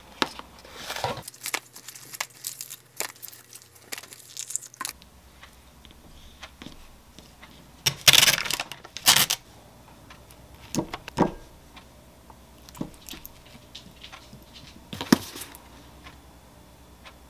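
Food packaging being handled: a thin plastic wrapper crinkling as it is peeled off a muffin, then a loud tearing as a yogurt tub's lid is pulled off about eight seconds in. Scattered light clicks and knocks of containers on the counter and plate.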